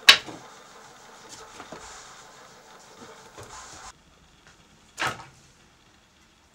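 Dry firewood sticks and branches knocking together as they are handled: a sharp, loud knock right at the start and another about five seconds in, with lighter wooden clatter between that cuts off abruptly near four seconds.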